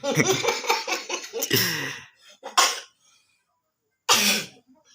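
A person's voice for the first two seconds, then two short coughs: one about two and a half seconds in, the second about four seconds in.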